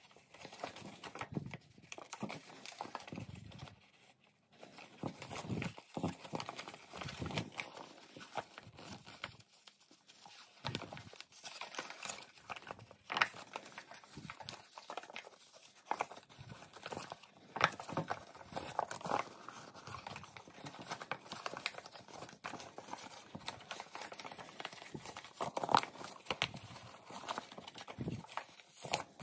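Sheet of US letter paper, already pleated into a grid of creases, crackling, rustling and snapping irregularly as fingers pinch and re-crease it by hand, with short pauses between bursts.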